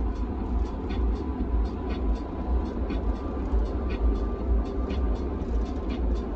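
Steady low rumble of road and engine noise inside a moving car's cabin, with faint, irregular light ticks scattered through it.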